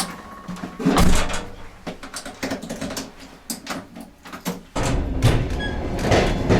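Knocks and clunks inside a passenger train carriage, then a steady low rumble of the train that starts suddenly about five seconds in.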